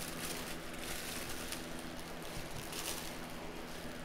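Quiet room tone: a steady low hum with a few faint, soft ticks.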